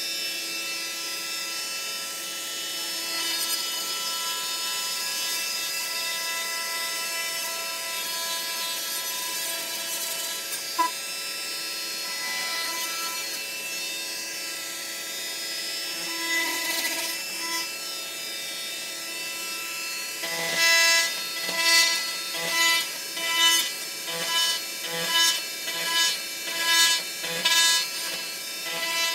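Milwaukee cordless oscillating multi-tool running with a steady whine as its blade cuts into drywall, over a vacuum running underneath. From about two-thirds of the way through, the sound swells and dips a little over once a second as the blade is pushed in and out of the board in short plunge cuts.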